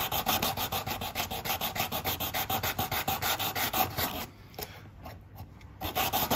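Sandpaper wrapped on a cork sanding block rubbed in quick, even back-and-forth strokes along the resin-filled edge of a windsurf fin. It is coarse 180-grit work, roughing the fin's outline back into shape. The strokes stop for a moment about four seconds in, then start again near the end.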